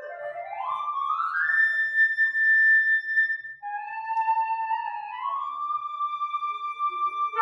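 A solo melody instrument plays one line: a long upward slide into a held high note, then a second phrase that climbs in steps to another held note. This is orchestral music, just before the full orchestra comes in.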